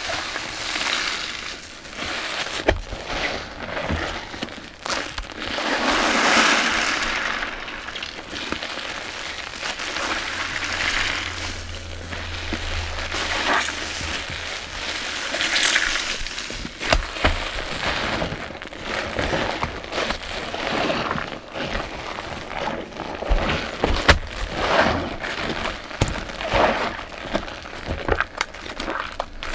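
Soap-soaked sponges squeezed by hand in thick shampoo suds: wet squelching with the crackle of popping foam, swelling with each squeeze.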